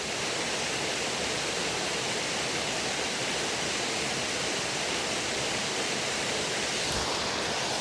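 Steady rush of a waterfall, an even wash of falling water with no change in level. A single brief knock sounds near the end.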